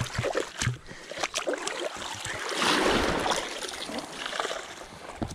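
Seawater sloshing and splashing as a swim fin is swished back and forth through the shallows, loudest about halfway through.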